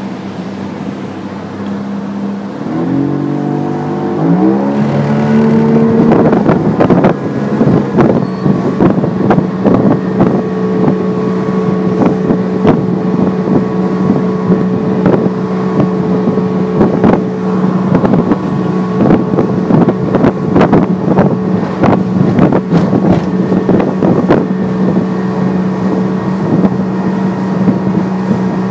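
Evinrude 115 HO G2 three-cylinder two-stroke outboard running low in gear, then revving up in a few quick rising steps about three seconds in and holding a steady, louder note under way. Repeated short thumps of the hull on the chop and wind on the microphone run through it.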